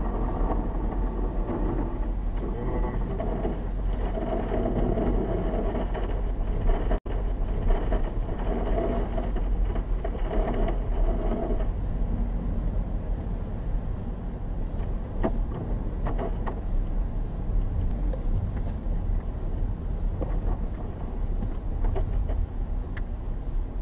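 Steady in-cabin running noise of a car driving at about 50 km/h on a snow-covered road: engine and tyre rumble. The sound drops out for an instant about seven seconds in.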